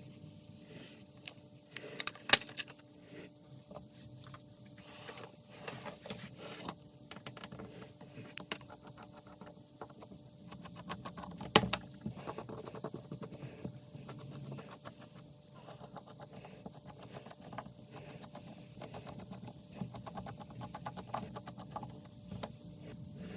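Small tools clicking, tapping and scraping on a Samsung Galaxy A51 during a screen replacement, with a few sharper clicks about two seconds in and near the middle, over a faint steady hum.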